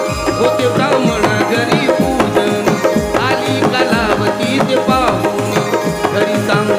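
Instrumental interlude of Marathi folk-devotional music: a tabla-like hand drum keeps a steady beat under a wavering melody line.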